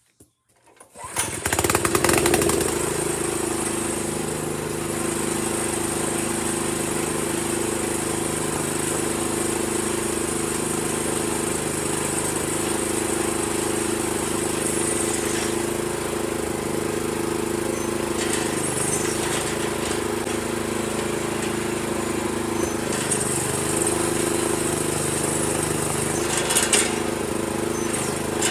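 Honda GX160 single-cylinder four-stroke engine starting about a second in, then running steadily at a constant speed.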